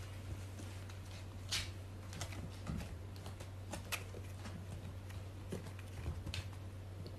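Two kittens wrestling in a felt cat bed, their claws and paws scrabbling on the corrugated cardboard scratcher floor: irregular scratches and light taps, loudest about a second and a half in and again around four seconds, over a steady low hum.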